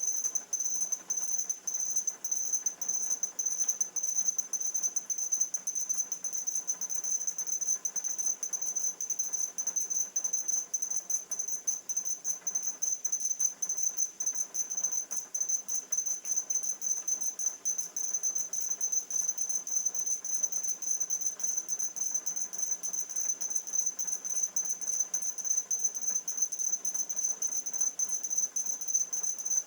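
e-puck robots' speakers beeping, many robots overlapping into a rapid, unbroken stream of short high-pitched beeps, sped up to double speed. Each robot beeps once per cycle and counts the beeps it hears to judge how close the swarm is.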